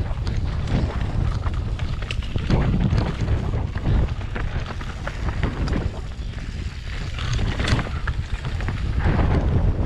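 Wind buffeting the microphone as a mountain bike descends a rocky dirt trail, with many quick knocks and rattles from the tyres and bike hitting stones and bumps.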